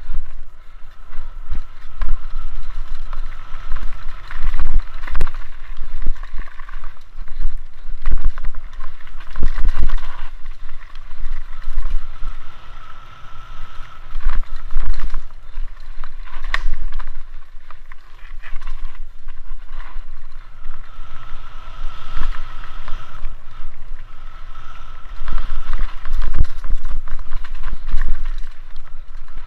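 Mountain bike descending a rough dirt trail, heard through a camera mounted on the bike or rider: constant wind buffeting on the microphone, the bike clattering and rattling over roots and bumps, and tyre noise on the dirt. A thin steady tone comes and goes a few times.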